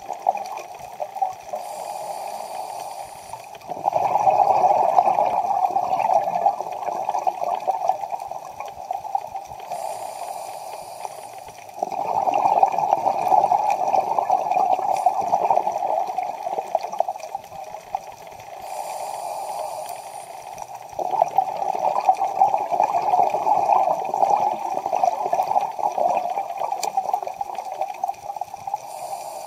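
A scuba diver breathing through a regulator, three breath cycles: each a short hiss of inhaling, then a longer, louder rush of exhaled bubbles.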